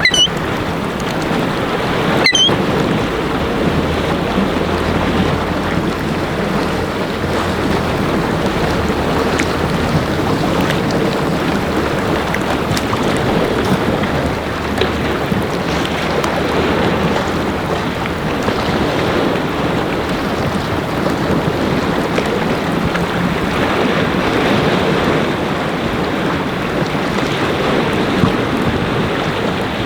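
Strong wind buffeting the microphone over Lake Huron waves breaking and washing, a steady rushing noise with no letup.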